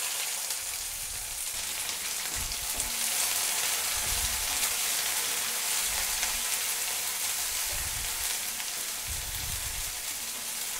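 Finely chopped onions sizzling steadily in hot oil in a nonstick pan as they are stirred with a wooden spatula, with a few soft low knocks. The sizzle cuts off abruptly at the end.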